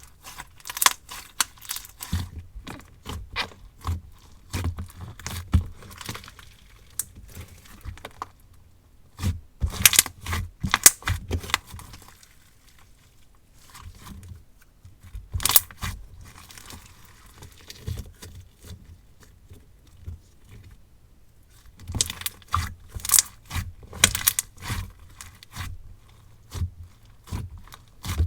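Glue-based marshmallow lemon slime being squished, poked and stretched by hand: irregular sticky clicks and crackling pops that come in bunches, with quieter pauses between.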